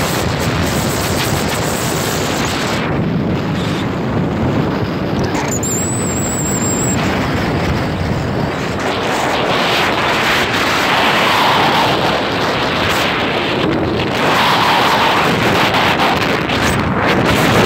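Wind rushing over the microphone of a moving vehicle, a steady rough noise with road and vehicle noise beneath it. It grows a little louder about ten seconds in.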